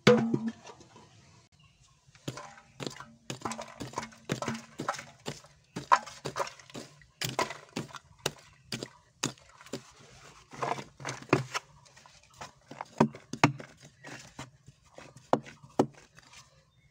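A short-handled hoe chopping into dry, crumbly soil and scraping it into a metal bowl, in a loose run of knocks and scrapes, one to three a second. A bowl lands with a loud knock at the start.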